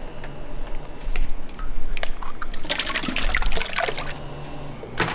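Liquid splashing and dripping, busiest in the middle, with a few sharp clicks over a steady low hum.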